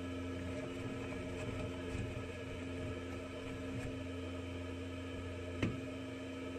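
Steady low mechanical hum inside a sandblasting cabinet with the blast gun shut off, and one sharp click about five and a half seconds in.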